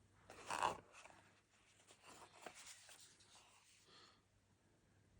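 Cardboard lid of a jigsaw puzzle box being worked off, rubbing and scraping against the box. There is one louder scrape about half a second in, then faint rustling.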